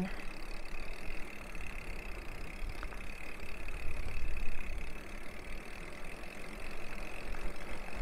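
Wind on the microphone and bicycle tyres rolling on the road while riding a mountain bike: a steady rushing rumble, with a faint steady high tone underneath.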